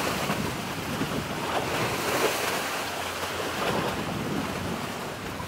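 Wind buffeting the microphone, with sea waves washing, a steady rushing noise that swells and eases a little.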